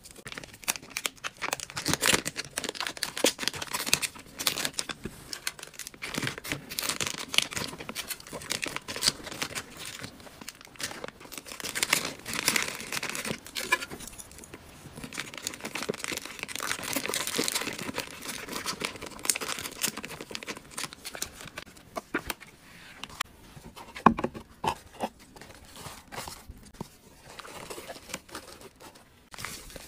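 Plastic packaging bags and wrappers being handled by hand, crinkling and rustling continuously, with many small clicks and taps and one sharper tap late on.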